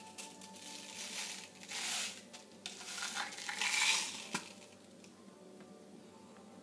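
Crinkling and rustling of plastic sweet packaging handled at a table, in short bursts about two and four seconds in, the second the loudest, with a small click just after.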